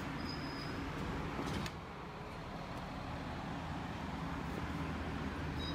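Steady outdoor background noise with a low rumble, which drops a little just under two seconds in.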